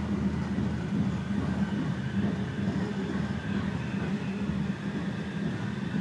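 Passenger train running steadily along the track, heard from on board: a continuous low rumble and hum with faint steady higher tones.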